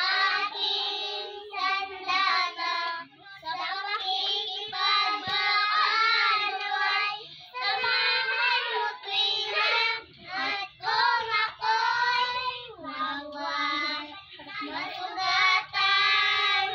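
A young child singing a song unaccompanied in a high voice, phrase after phrase with short pauses for breath.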